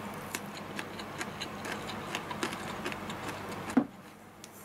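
A person chewing a mouthful of stir-fried green pepper and tofu over rice, with small irregular wet mouth clicks several times a second. A sharper click comes near the end, then it goes quieter.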